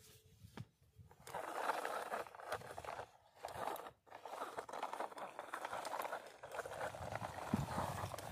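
A plastic toy dump truck loaded with sand, pushed by hand over gritty sandy ground: a rough, crackly scraping and crunching of its wheels in the grit. It starts about a second in, with brief pauses near three and four seconds.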